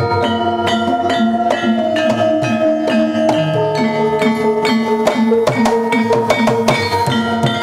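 Javanese gamelan ensemble playing at an even pace: metal bars of saron-type metallophones struck with wooden mallets, ringing over bonang kettle gongs and hanging gongs, with hand-drum strokes.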